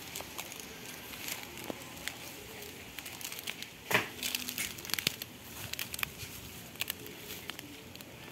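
Dry leaves, twigs and splintered wood crackling and crunching underfoot, a run of sharp snaps that is thickest in the middle, with the loudest snap about four seconds in.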